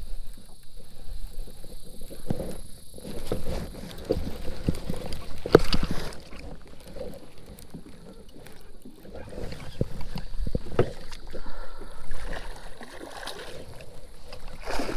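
Water splashing and lapping against a plastic fishing kayak, with irregular knocks and clunks against the hull, as a hooked fish is fought up to the boat on a baitcasting rod.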